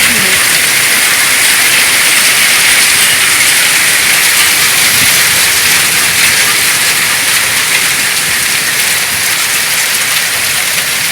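Rain falling steadily, an even hiss of drops on surfaces.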